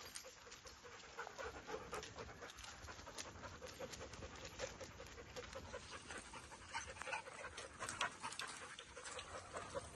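Dog panting in a quick, even rhythm of about three breaths a second, easing off about six seconds in, with light clicks and scuffs of feet on the asphalt.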